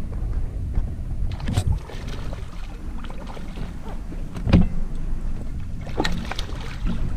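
Water slapping and splashing as a hooked bass thrashes at the surface beside a small boat, several sharp splashes with the loudest about halfway through, over a steady low rumble of water against the hull.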